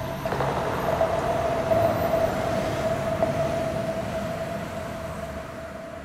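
Vital wavetable synth preset: one sustained steady tone over a noisy, rumbling ambient texture from a field-recording sample layer. It swells a moment after the start and then slowly dies away.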